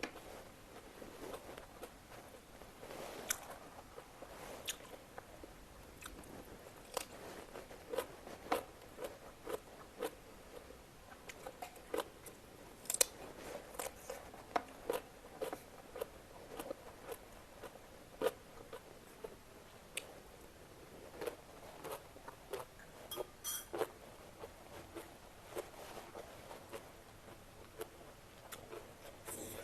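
Close-up mukbang eating sounds: chewing on momos and side dishes, with a steady string of small, irregular wet clicks and crunches from the mouth.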